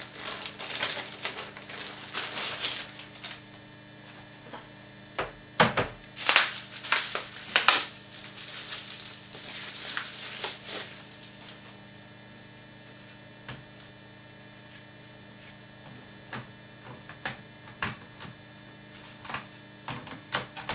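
Plastic wrapping crinkling, then a cluster of sharp clicks and knocks as a battery is handled and snapped into the underside of an HP Mini 1000 netbook. Scattered lighter clicks follow, over a steady electrical hum.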